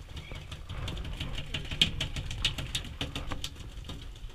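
Boat engine idling in a steady low rumble, with irregular light clicks and rattles from fishing gear being handled over it.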